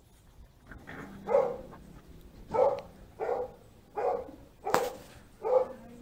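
Bernese Mountain Dog puppy barking: about six short single barks, spaced well under a second apart.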